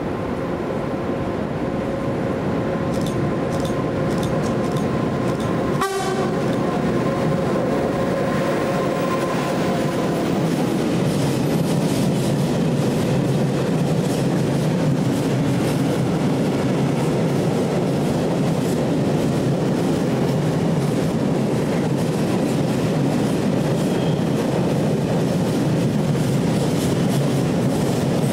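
Freight train passing: for the first ten seconds the locomotive gives out steady tones over the rising rumble, with a single sharp crack about six seconds in. Then the open wagons roll past with a steady rumble and wheel clatter over the rail joints.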